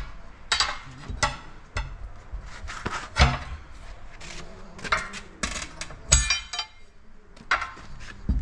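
Steel tyre lever knocking and clinking against a tractor's steel wheel rim as the rear tyre is pried off: irregular sharp metal knocks, the loudest about three seconds in, some with a brief ring.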